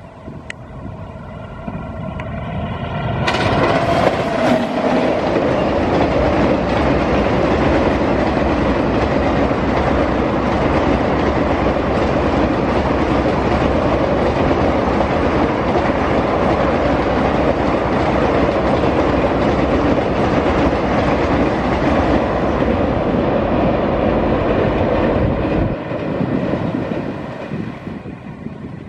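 Indian Railways express train with ICF coaches, hauled by a WAP-7 electric locomotive, crossing an iron river bridge at speed: wheels rumbling and clattering on the bridge. It builds for a few seconds, jumps to a loud, steady din about three seconds in, holds for some twenty seconds, then drops off near the end as the train clears the bridge.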